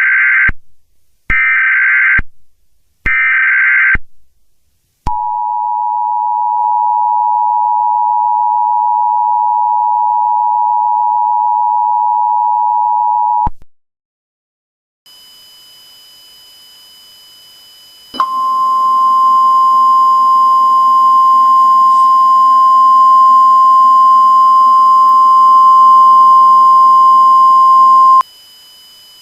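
Emergency Alert System tones: three short buzzy SAME data bursts, then the two-tone attention signal held for about eight seconds. After a gap of a few seconds, a single steady tone over static hiss sounds for about ten seconds.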